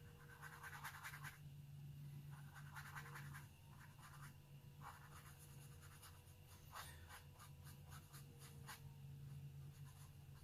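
Faint scratchy strokes of a round watercolour brush dabbing and dragging gray wash across a scrap of test paper, in short bursts with pauses, over a low steady hum.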